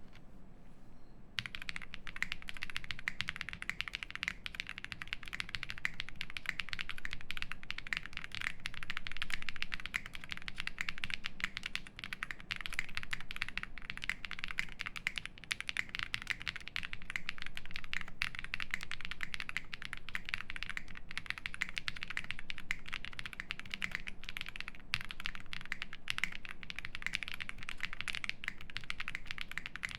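Fast, continuous typing on a Thera75 mechanical keyboard with lubed Zaku switches, built plateless and fully foamed, under GMK keycaps. A few scattered keystrokes at first, then a dense run of key clicks from about a second and a half in.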